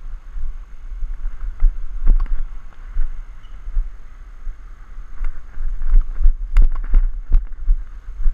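Wind buffeting the action camera's microphone, a loud fluctuating low rumble, with several sharp knocks: one about two seconds in and a quick cluster in the second half.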